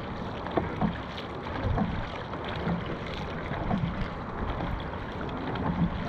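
Water splashing and rushing around a paddled dragon boat, with irregular sharper splashes over a steady wash of noise.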